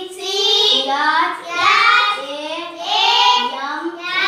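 A young boy reciting flower names in a drawn-out, sing-song chant, one long rising phrase after another.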